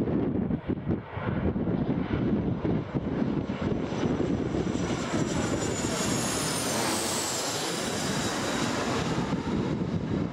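BAe 146-family four-engined regional jet on final approach passing low overhead. Its turbofans roar, with a high whine that falls in pitch as it goes over a little past halfway. Gusty wind buffets the microphone in the first seconds.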